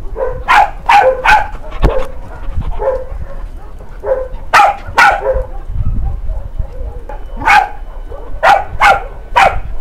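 Dog barking in short, sharp barks, about ten in all, coming in quick groups of two or three.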